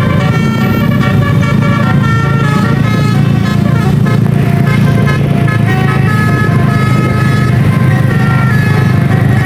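Basuri multi-tone musical horn playing a tune, note after note in quick steps, over the steady low hum of a running vehicle engine.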